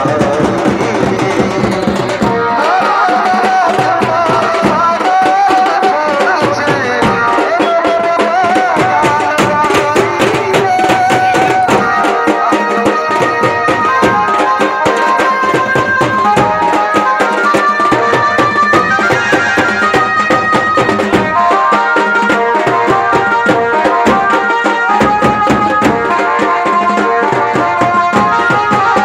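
Lively Indian music with a fast hand-drum rhythm under a melody. The melody glides between notes for the first ten seconds or so, then moves in short held notes.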